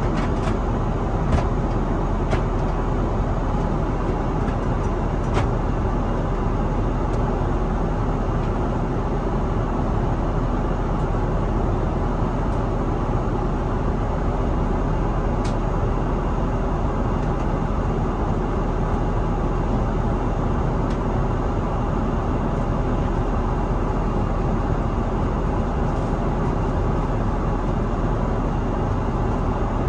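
Steady cabin noise inside an Airbus A330-900neo airliner in flight: an even rushing roar of airflow and its Rolls-Royce Trent 7000 engines. A few faint clicks sound in the first few seconds.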